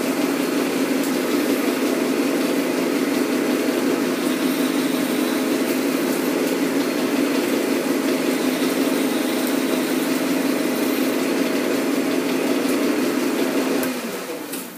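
Metal lathe running under power during a facing cut on a metal clutch hub: a steady geared hum from the headstock. About 14 seconds in the lathe is switched off and the hum winds down and fades.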